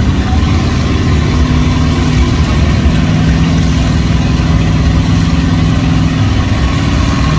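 Engines of lifted mud trucks on tractor tires running loudly and steadily, a deep rumble.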